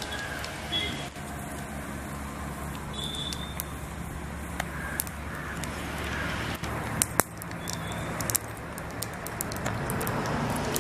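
Mustard seeds sizzling and popping in hot oil, the sharp pops coming more often in the second half, over a steady low rumble.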